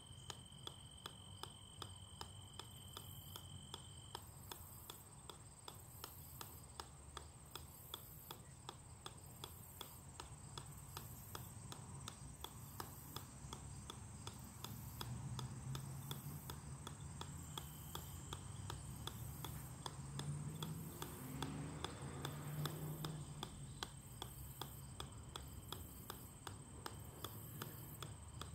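Golf ball bouncing on the steel head of an 8-pound sledgehammer: a sharp click about twice a second in a steady, unbroken rhythm.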